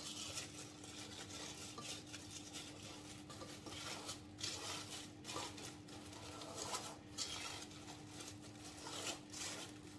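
Plastic film crinkling and rustling in short, irregular crackles as hands press a genoise sponge layer down into a film-lined cake tin.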